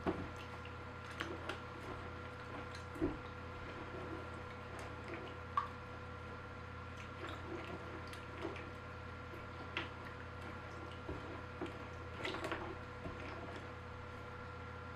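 A wet mash of vermicompost and wood pellets soaked in compost tea being stirred in a container: scattered soft squelches and drips, over a steady low hum.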